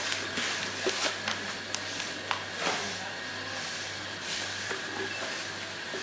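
Asian elephant chewing a mouthful of long leafy grass: scattered crackles and snaps of leaves over a steady hiss.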